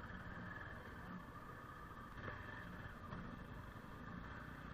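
Motorcycle engine running steadily at low speed on a rough dirt track, heard from the rider's seat: a low, even hum.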